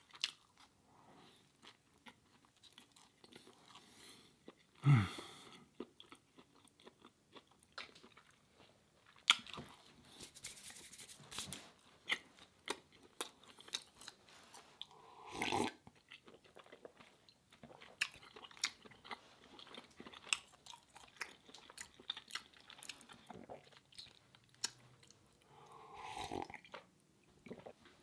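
Close-miked chewing of a crusty ciabatta breakfast sandwich: soft crunching and wet mouth clicks, with a few louder mouth noises, the loudest about five seconds in, and a sharp knock about nine seconds in.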